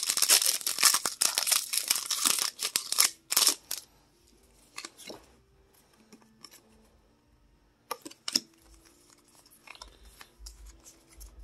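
Foil wrapper of a Pokémon TCG booster pack crinkling and tearing as it is ripped open, for about the first three and a half seconds. Then it goes much quieter, with soft clicks and slides of the cards being pulled out and flicked through by hand.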